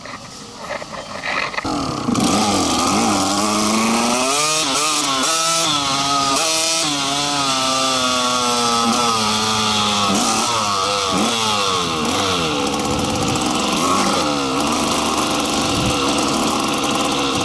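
A small petrol engine starts running loudly about two seconds in and keeps going under way, its pitch rising and falling as the throttle opens and closes.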